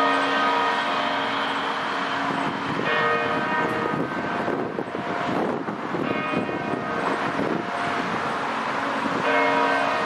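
Church tower bells, four of the eleven, ringing, with a new stroke about every three seconds and each tone lingering into the next. A car passes on the street in the middle.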